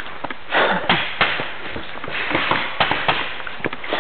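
Paintball markers firing: a string of sharp pops at irregular intervals, with short stretches of rustling noise between them.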